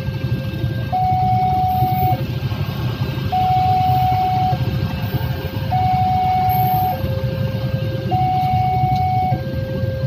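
Electronic level-crossing alarm sounding its two-tone warning, a higher and a lower tone alternating about every second, while a passenger train rolls past with a steady low rumble.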